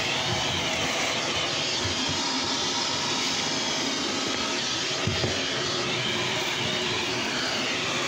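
Vacuum cleaner running steadily over a rug, its motor whine wavering slightly in pitch.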